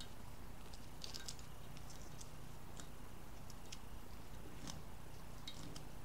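Faint, irregular scratching and ticking of sandpaper rubbed on a copper magnet-wire end from a washing-machine motor stator, sanding off its enamel, over a low steady hum.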